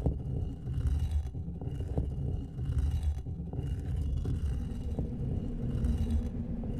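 Deep, low rumble that starts abruptly, with short bursts of hiss every second or so and a few sharp clicks; a steady low hum comes in near the end.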